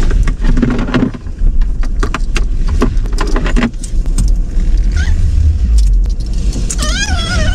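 Electric car rolling slowly: a low road rumble with frequent light clicks and rattles, and a short warbling tone near the end.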